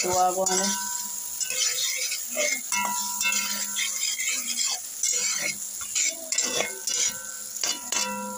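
Slotted metal spatula scraping and stirring vegetables frying in butter in a metal pot, in irregular strokes about two a second, with a light sizzle underneath.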